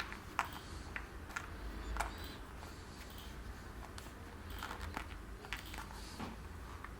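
Scattered light clicks and taps, about a dozen, from handling a watch and its packaging, over a low steady hum.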